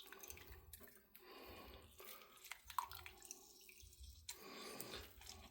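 Half a lemon squeezed on a fork, its juice dripping into a Pyrex jug: faint drips with a few small clicks.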